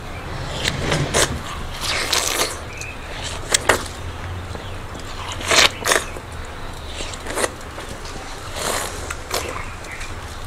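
Two people biting into and slurping juicy watermelon slices: wet, crisp bites and sucking at irregular intervals, a few of them sharp and loud, over a steady low hum.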